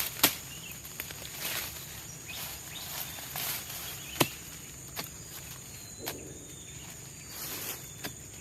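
A steady high insect drone from the rainforest, with a handful of sharp knocks and some soft rustling scattered over it.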